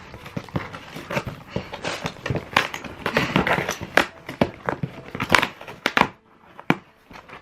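Packaging being crinkled and torn, a dense run of irregular crackles and rustles that dies away about six seconds in, with one last crackle near the end.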